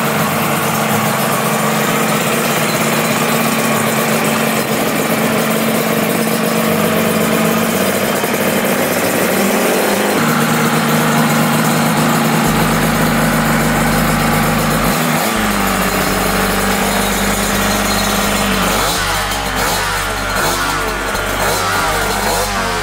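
Suzuki RG400 Gamma's two-stroke square-four engine running at idle on its stand, its pitch shifting a few times. In the last few seconds it is revved with the throttle.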